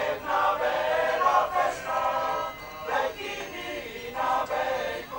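Several voices singing together like a small choir, in short phrases with brief breaks between them.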